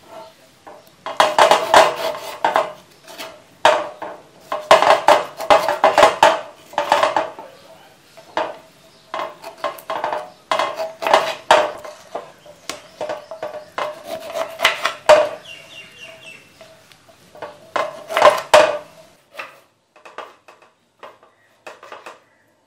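Kitchen knife cutting lemons into wedges on a wooden cutting board: clusters of quick knocks as the blade slices through each lemon and hits the wood, with short pauses between lemons.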